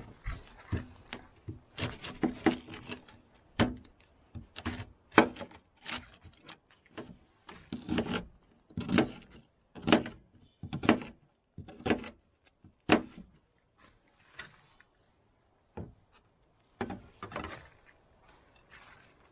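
Irregular knocks, clicks and rubbing of hard objects being handled, coming in quick clusters, with a pause of a few seconds about two-thirds of the way through.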